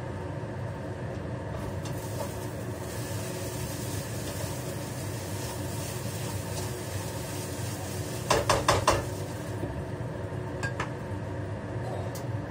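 Metal spatula knocking against a wok while stir-frying fried rice: a quick run of about five clanks about eight seconds in, with a couple of single taps later, over a light sizzle. A steady hum with a fan-like tone runs underneath, from the range hood.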